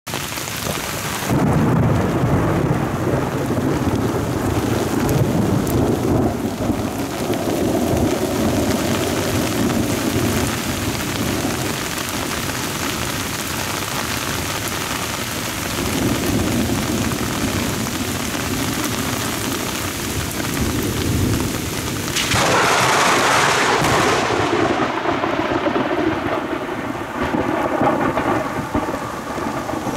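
Steady heavy rain falling on a pond, with rolling thunder rumbling in about a second in and swelling again around halfway. About three quarters of the way through, the rain suddenly gets louder and brighter.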